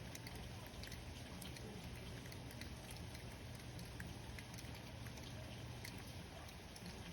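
Light rain falling steadily, with scattered individual drops ticking on a surface throughout; no thunder is heard.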